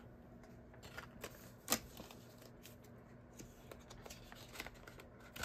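Faint handling of paper banknotes and a plastic cash envelope in a ring binder: soft rustles and small clicks, with one sharper tap about a second and a half in.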